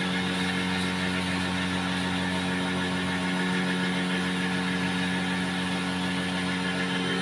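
Gas-heated cotton candy machine running, its spinning head giving a steady, even hum over a constant hiss while floss is wound onto a stick.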